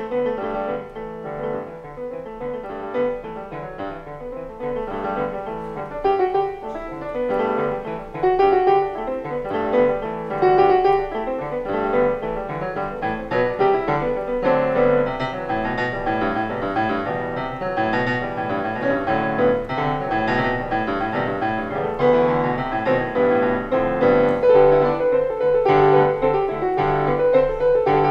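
Piano music, a continuous flowing run of notes.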